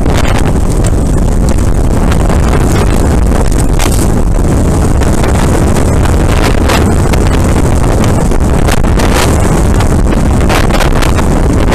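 Wind buffeting an action camera's microphone as a mountain bike descends fast over loose slate, with the tyres crunching on the stones and a constant clatter and rattle of the bike over the rough surface.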